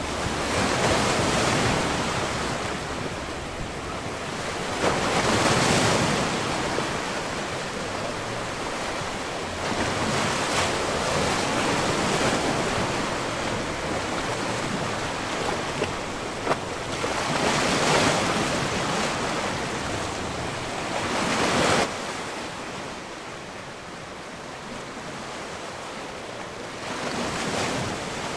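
Rushing noise, like wind or surf, that swells and fades every few seconds, with no tune or beat. It drops suddenly to a lower level about three-quarters of the way through.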